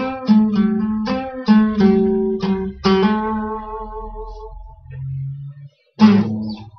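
Classical-style acoustic guitar played solo in a rock and roll improvisation. Chords are struck about twice a second, then one chord is left to ring and fade, a low note sounds, and after a brief pause a last loud strummed chord comes near the end.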